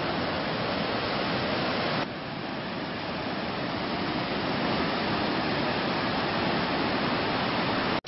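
Ocean surf breaking and washing up a sandy beach: a steady rush that drops suddenly about two seconds in, then builds again.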